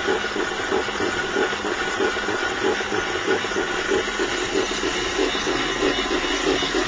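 CEREC 3 dental milling unit running: its diamond burrs grind a porcelain block under water spray to cut a ceramic onlay, a steady grinding whir with a fast, uneven flutter.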